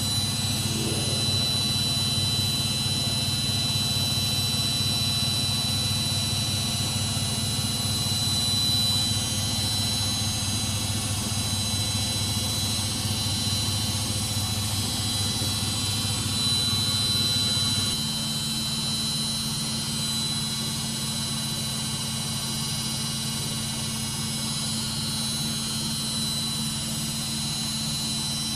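Samsung washing machine drum in its final high-speed spin, around 1200 revolutions per minute, wringing the water from the clothes: a steady mechanical drone with a thin high whine. About two-thirds of the way through the low hum steps down as the spin nears its end.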